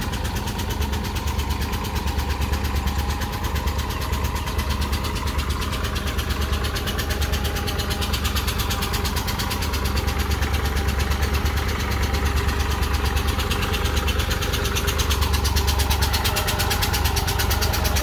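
Farm tractor's diesel engine running steadily as it pulls a tillage implement through a flooded field, growing a little louder near the end as it comes closer.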